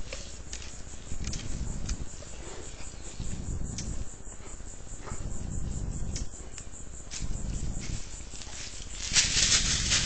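Outdoor ambience picked up by a security camera's microphone: patches of low rumbling and scattered light ticks, then an insect starts a loud, even buzzing hiss about nine seconds in.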